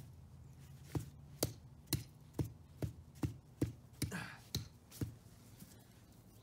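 A golf club tapping lightly against small broken pieces on the ground, about ten even taps at roughly two a second, with a brief rustle near the end of the tapping. The taps stop about five seconds in.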